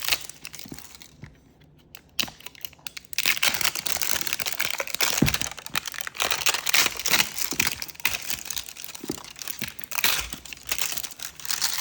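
Plastic wrapping crinkling and tearing as it is pulled at by hand to get it off a package. It goes in irregular crackly bursts, with a quieter lull from about one to three seconds in.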